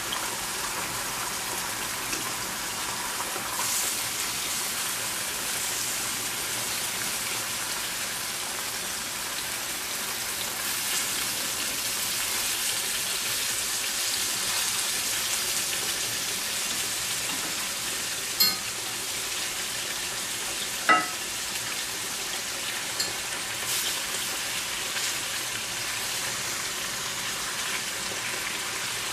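Marinated pork pieces sizzling steadily skin-side down in a stainless steel pan over very low heat, the skin being seared. A few sharp clicks come as the pieces are turned with metal tongs and a wooden spatula; the loudest is about two-thirds of the way through.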